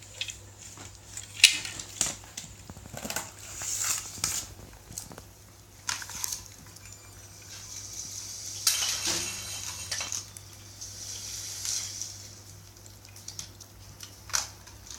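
Plastic LEGO bricks knocking and clattering as a small LEGO remote-control car built from train parts drives its front buffer into a row of loose bricks and crashes. There are scattered sharp knocks, the loudest about a second and a half in, with more clusters of clatter later.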